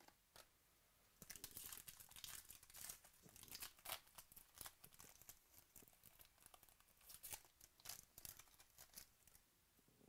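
Foil wrapper of a 2018 Bowman Chrome baseball card pack being torn open and crinkled by hand, a faint run of crackly tearing and crinkling starting about a second in and stopping just before the end.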